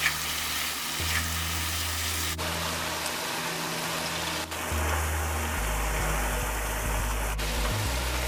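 Food sizzling and frying in a pan, a steady crackling hiss that breaks off and resumes abruptly a few times.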